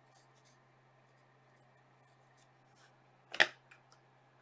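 Quiet room tone with a faint steady hum, broken about three and a half seconds in by one sharp click from a trading card being handled.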